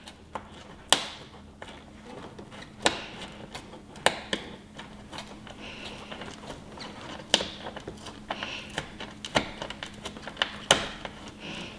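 Irregular sharp clicks and light knocks with faint rustling, from a hand and a wrench working on bolts inside a Corvette C7's plastic rear fender-vent housing.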